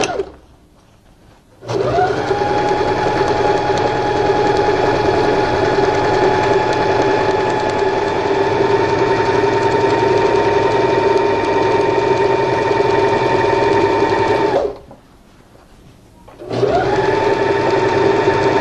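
Sewing machine stitching a long straight seam through two layers of fabric. After a short pause it spins up with a rising whine, runs at a steady speed for about twelve seconds, and stops. It then starts again near the end.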